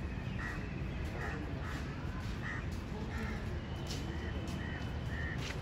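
Birds calling, a string of short calls about one or two a second, over a steady low background rumble.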